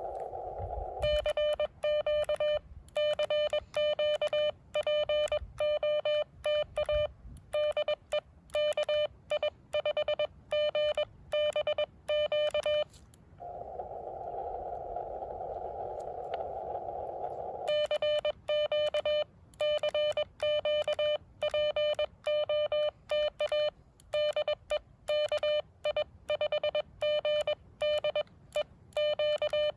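Morse code sent on an amateur radio transceiver, heard as the rig's sidetone: a steady beeping tone keyed on and off in dots and dashes. The keying pauses for about four seconds partway through, while the receiver's narrow-filtered band hiss comes up, then resumes.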